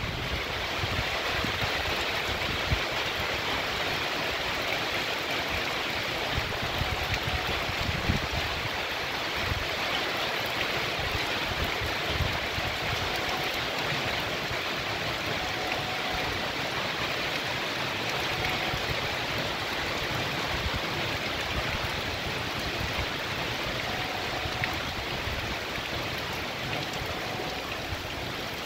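Heavy rain falling steadily on a paved street, with rainwater running off along it.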